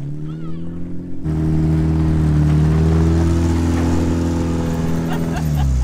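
Suzuki Samurai's small four-cylinder engine running under throttle: its pitch dips and climbs again in the first second, then the engine holds a loud, steady drone at one pitch, falling away near the end as the revs drop.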